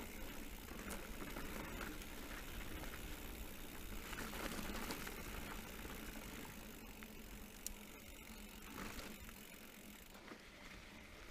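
Specialized Turbo Levo electric mountain bike riding fast down a rough dirt and gravel track: tyre noise with the bike's parts rattling and clicking over the bumps. Wind rumbles on the camera's microphone underneath.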